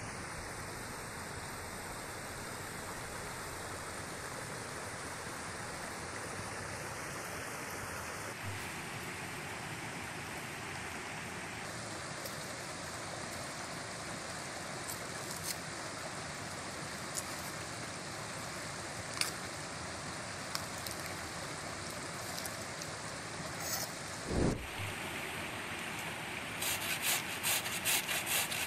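Steady rush of a small forest stream, with a few faint knife clicks as an onion is peeled and cut and a dull thump near the end. In the last couple of seconds a potato is rasped on a metal box grater, about three scraping strokes a second.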